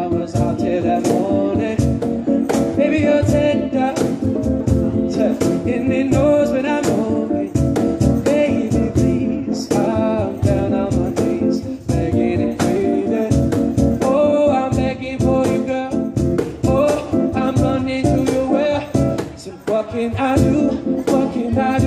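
Live song: a man singing into a microphone over instrumental accompaniment with a steady beat.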